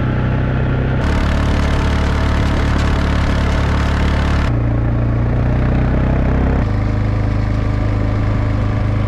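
Motor vehicle engine running steadily, in several short cuts that change its pitch abruptly about a second in, midway and about two-thirds of the way through.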